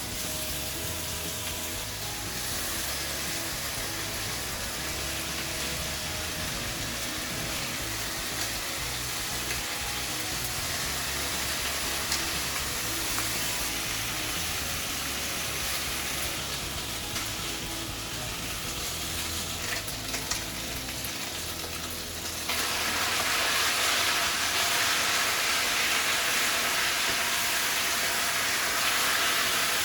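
Food sizzling as it fries in hot oil in a pan, a steady crackling hiss. About two-thirds of the way through it suddenly gets louder and brighter and stays that way, as if the pan has got hotter or more food has gone in.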